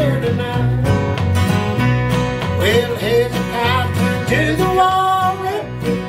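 Country-gospel instrumental break on acoustic guitars: a strummed rhythm with alternating bass notes under a lead line whose notes slide up and down in pitch.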